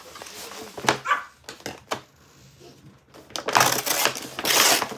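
A brown paper mailer envelope is torn open by hand, with two loud rips near the end. A dog barks about a second in.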